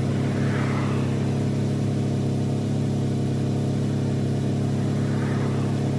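Jeep JK's 3.8-litre V6 running steadily at idle and driving a converted AC compressor as an onboard air pump, which is filling a flat tire through an inline gauge: a constant engine hum with faint hiss.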